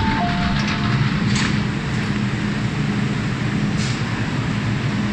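MTR M-Train door chime, a high note then a lower note, sounding through about the first second, followed by the steady low hum of the train standing at the platform.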